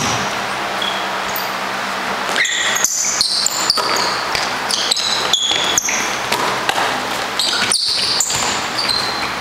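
Basketball bouncing on a gym floor, with many short high-pitched sneaker squeaks as players cut and stop.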